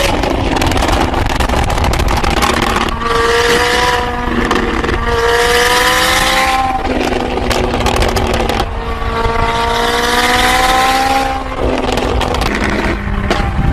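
A car engine accelerating hard, its pitch climbing and then dropping back several times as it shifts up through the gears.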